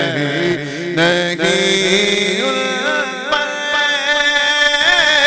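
A male voice singing an Urdu naat (devotional kalam) unaccompanied, stretching the words into long, wavering melismatic notes that glide up and down in pitch.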